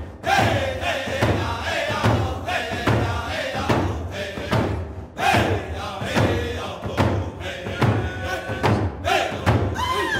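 Background music with a steady thumping beat and chanted vocals.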